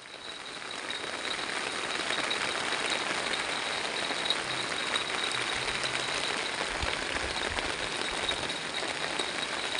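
Heavy rain falling steadily on the river and the bankside vegetation, an even hiss that builds over the first second or so and then holds.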